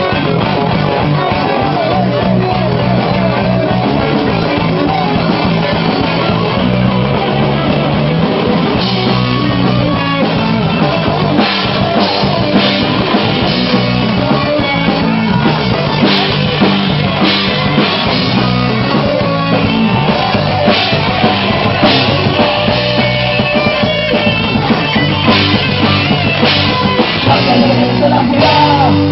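Rock band playing live, an instrumental passage with drum kit, guitar and bass.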